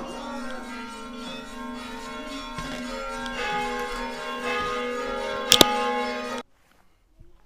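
Orthodox church bells ringing, several bells sounding at once and swelling louder as they are struck again. One sharp, very loud strike comes about five and a half seconds in, and the ringing cuts off abruptly soon after.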